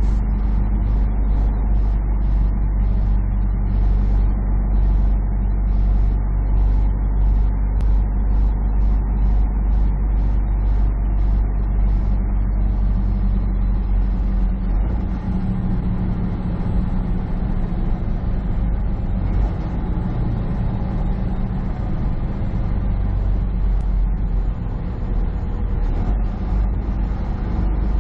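Semi truck's diesel engine and road noise heard from inside the cab while driving, a steady hum. A light clicking about twice a second runs through the first half, and the engine note shifts about halfway through.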